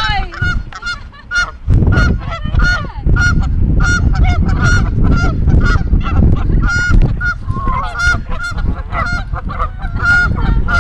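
Canada geese honking, a rapid run of short calls several times a second, with a low rumble underneath from about two seconds in.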